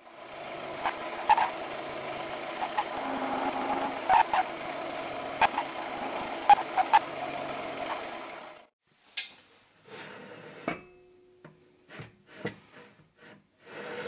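Milling machine with its end mill cutting a steel angle-section motor mount: a steady cutting noise with a high whine and scattered sharp ticks. The cut stops about eight and a half seconds in, followed by a few separate metallic knocks and clanks.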